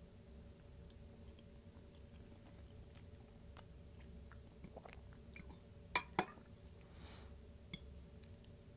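Close-miked chewing of a chicken bowl, with small mouth clicks. About six seconds in come two loud sharp clicks a fraction of a second apart, then one more click near the end.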